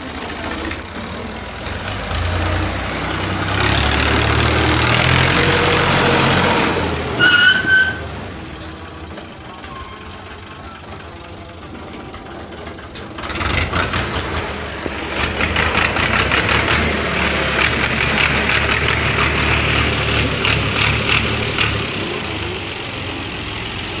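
Fiat 480 tractor's diesel engine running under load as it pulls a trolley of crushed stone. It is revved hard twice, with a quieter spell between, and gives a brief high squeal about seven seconds in.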